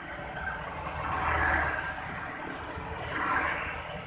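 Motorbikes passing in light road traffic, each rising and fading as it goes by: one about a second and a half in and another a little after three seconds.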